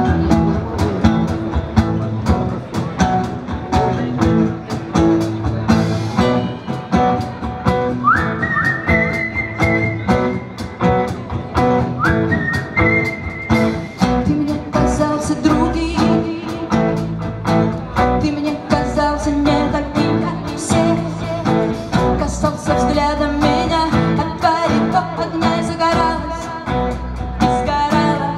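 Live pop-rock band playing a song: strummed acoustic guitar, electric bass, drum kit and keyboard, with a steady beat. Twice, about eight and twelve seconds in, a high sliding note rises and holds.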